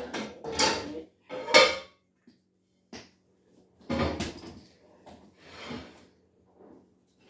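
Several short knocks and clatters from a toy plastic golf club and ball being putted at a plastic cup on a rug, the loudest about one and a half seconds in and another about four seconds in, over a faint steady hum.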